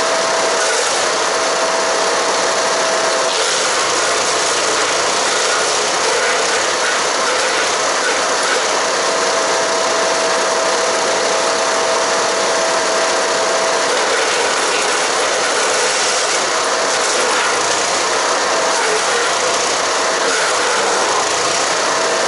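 Haige 15 hp wood chipper running under load, chipping cedar and cypress branches: a loud, steady engine-and-cutter din with a thin whine that drops in and out.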